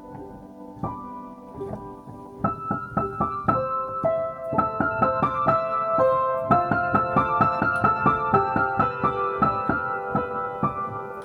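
Solo piano music: a few quiet sustained notes, then from about two and a half seconds in a louder, flowing run of quicker notes.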